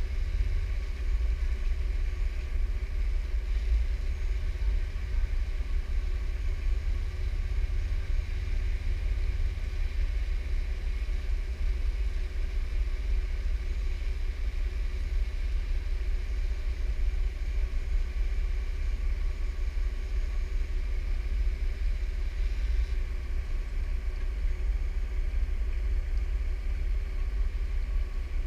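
Jeep engine idling steadily, a heavy low rumble carried through the hood-mounted camera, with a faint steady whine above it.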